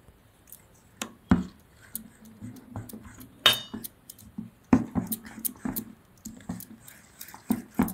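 A steel spoon stirring batter in a stainless steel bowl, clinking and scraping against the bowl's sides in irregular taps, with one ringing clink about three and a half seconds in.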